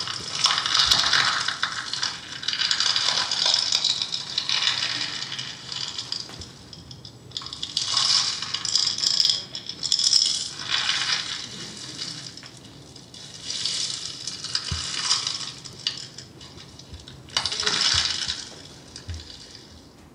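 A rattle shaken in repeated swells, each lasting a second or two with short pauses between, a dry jingling sound that fades out near the end.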